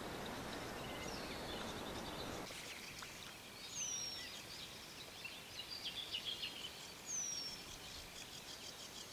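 Small birds chirping and trilling in riverside bushes, with two clear falling whistled calls about three and a half and seven seconds in. For the first couple of seconds a steady rushing noise sits under them and stops abruptly.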